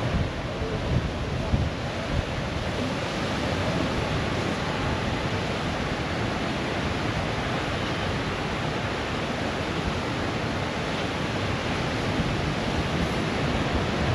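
Steady rush of ocean surf breaking on the beach, with wind on the microphone, gusting harder in the first couple of seconds.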